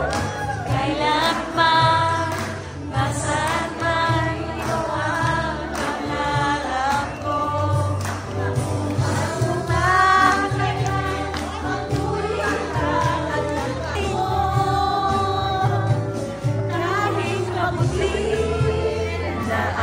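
A song playing, with sung vocals over a steady bass line.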